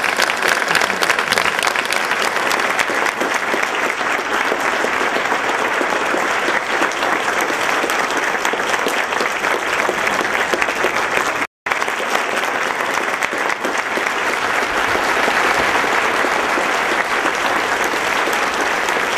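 Large audience giving a standing ovation: dense, steady clapping from many hands. It drops out for an instant about two-thirds of the way through.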